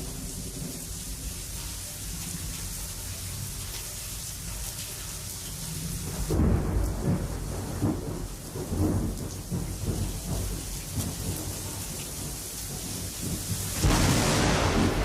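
Thunder rumbling from an approaching thunderstorm over steady rain noise. A long roll of thunder starts about six seconds in and rumbles on for several seconds. A sudden louder rush of noise comes near the end.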